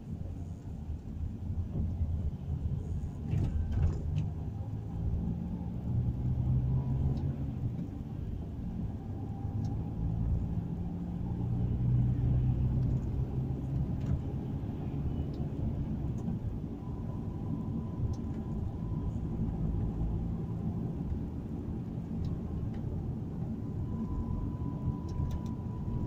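Car engine and road noise heard from inside the cabin while driving: a steady low rumble, with the engine note rising and falling as the car speeds up and slows.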